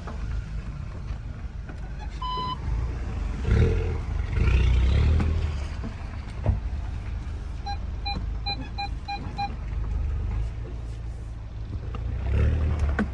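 Volkswagen Jetta 2.0 TSI engine and modified exhaust (downpipe, straight pipe, original rear silencer) rumbling at low speed while manoeuvring, swelling louder about three and a half seconds in and again near the end. A single electronic beep comes about two seconds in, and a quick run of about seven beeps follows around eight seconds in.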